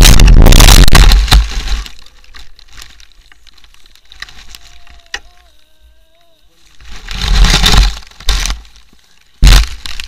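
Mountain bike crashing and tumbling into grass: loud clipped noise that drops away after about a second, then quiet with faint rustling, broken by two loud bursts of noise near the end.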